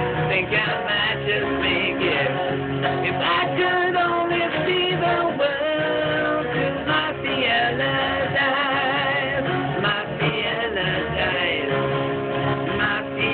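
Acoustic guitar strumming with a male voice singing.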